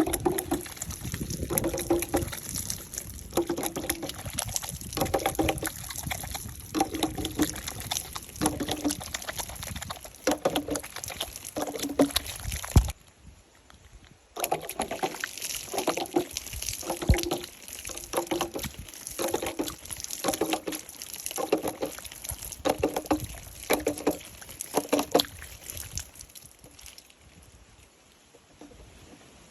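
Water sloshing or being poured in a rhythmic series of short, pitched splashes about one a second, with a pause partway through, dying away near the end.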